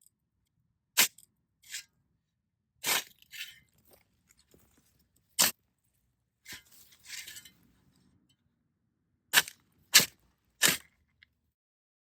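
Metal shovel blade digging into hard, stony dirt: sharp clinks as it strikes gravel and rocks, spaced irregularly, with a short gritty scrape of soil a little past the middle and three quick strikes near the end.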